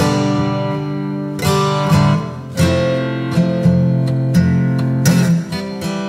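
Background music led by strummed and plucked acoustic guitar chords.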